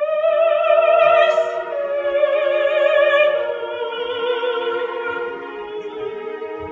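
Operatic soprano voice singing a phrase of long held notes with wide vibrato, the line stepping down in pitch.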